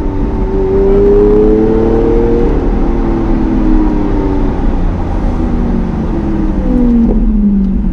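Lamborghini Aventador's V12 engine running under light throttle while driving, its pitch rising over the first couple of seconds, then easing off and falling near the end as the car slows.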